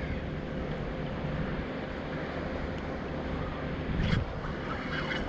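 Wind rushing over the microphone and the steady wash of shallow sea water, with a faint steady hum underneath. A short click or knock about four seconds in.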